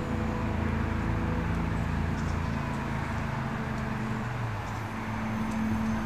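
Background music of slow, held chords, the chord changing about four seconds in.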